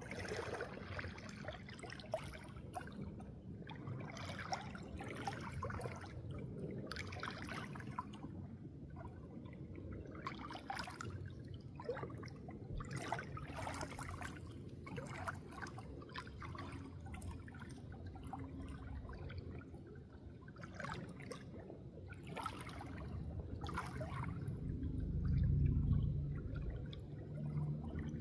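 Water trickling and splashing unevenly. A low rumble swells briefly near the end.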